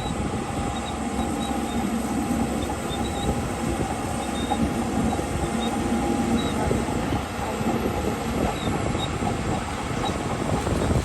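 Crawler bulldozer's diesel engine working under load, with its steel tracks clanking and clattering steadily.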